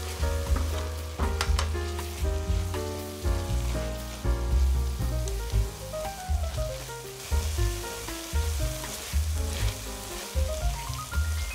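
Sliced bell pepper, carrot and onion sizzling in oil in a stainless steel sauté pan, stirred with a spatula, with sharp scrapes now and then. Background music runs underneath, a melody of short stepping notes over a deep bass.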